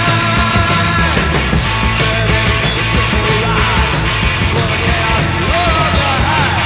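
Speed metal band recording playing loud and dense: guitars, bass and drums with regular cymbal hits, and lead lines that bend in pitch.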